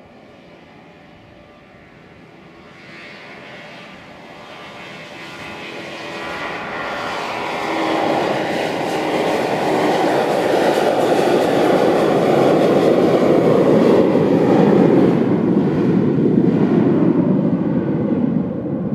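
Boeing 737-800's CFM56-7B jet engines at takeoff thrust during the takeoff roll. The roar builds steadily as the airliner approaches and passes, loudest in the second half, then falls in pitch as it moves away.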